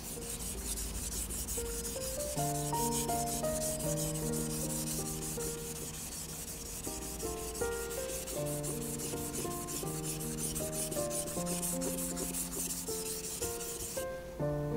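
Santoku kitchen knife blade rubbed back and forth on a wet whetstone in quick, closely spaced strokes, a gritty scraping hiss that stops shortly before the end. Soft background music plays underneath.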